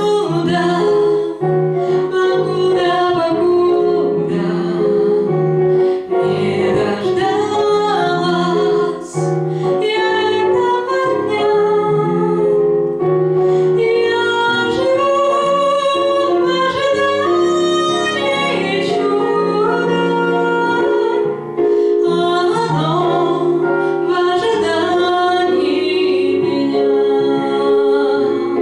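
A woman singing a pop song over piano accompaniment, held notes and a moving melody throughout.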